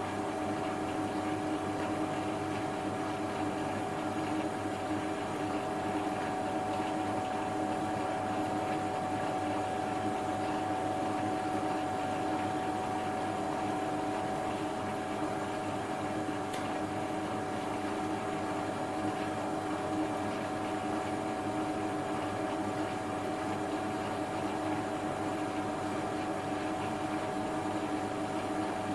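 Small bench lathe running slowly, at about 125 RPM, with a steady motor and gear-train whine holding a few fixed tones. A high-speed-steel shear tool takes a very light finishing cut on a low-carbon steel shaft under the finest power feed.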